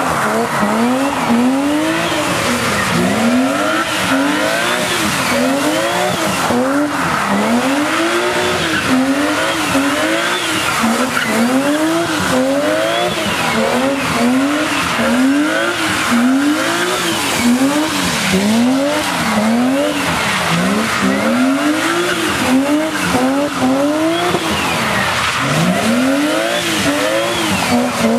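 BMW E36 3 Series doing donuts on wet tarmac: the engine revs up and falls back over and over, roughly once a second, as the throttle is worked to keep the rear wheels spinning, over a continuous hiss and squeal of the sliding tyres.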